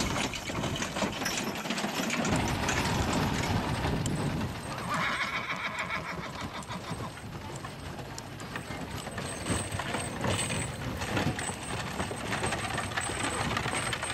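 Hooves clip-clopping as a harnessed draft team pulls a wagon, with a whinny lasting about a second around five seconds in.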